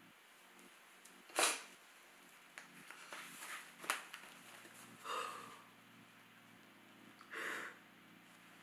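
A woman crying quietly: a few sharp sniffs and sobbing breaths, a couple of seconds apart, with a tissue rustling as she wipes her face.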